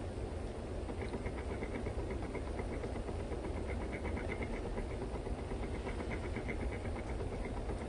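Steady low outdoor rumble and hiss, with several runs of faint, rapid high-pitched chirps repeating evenly.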